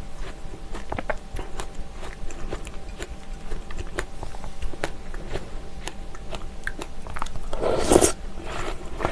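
Close-up chewing of strawberries and yogurt, with small wet clicks and crunches and the spoon scraping the glass bowl. About eight seconds in there is a louder wet burst as a spoonful goes into the mouth.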